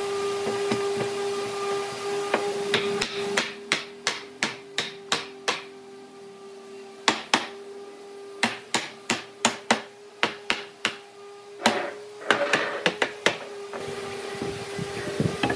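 A hammer striking a wooden frame in quick runs of sharp taps, about three a second, as the frame's joints are knocked together. A steady machine hum runs underneath, strongest near the start and end.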